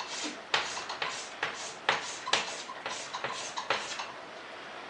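Chalk scratching across a chalkboard in a quick series of about a dozen short back-and-forth strokes, about three a second, drawing zigzag lines; the strokes stop about four seconds in.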